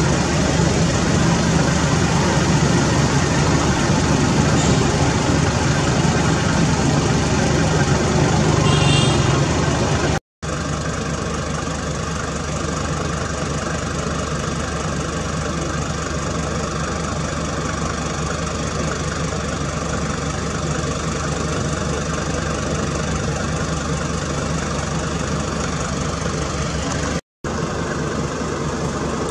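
A motor vehicle's engine running steadily at idle: a low hum under a rushing noise, cut by two brief drops to silence.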